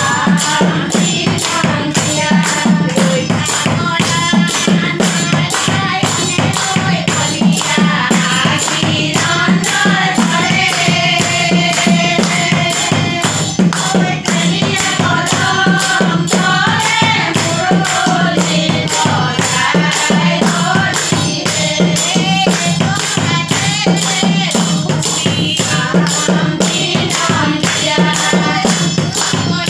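A group of women singing Assamese devotional naam together, with steady rhythmic hand-clapping.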